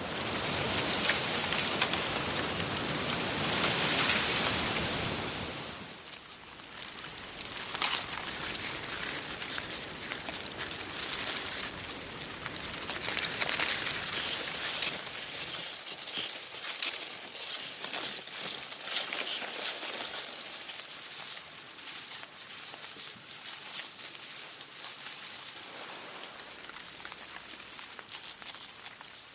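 Wind blowing through leaves, a dense rustle with many small crackles. A strong gust fills roughly the first six seconds, then the rustle settles lower and more broken.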